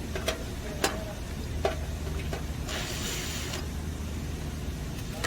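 Light metallic clicks and knocks with a short ring from a sheet-metal unit panel being handled during disassembly, with a brief scraping hiss about three seconds in. A steady low hum runs underneath.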